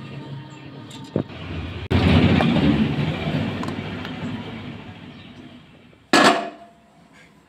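Electric mixer grinder running, grinding soaked moong dal in its steel jar with the lid held down by hand. It starts abruptly about two seconds in and slowly fades. A short, loud burst comes near the end.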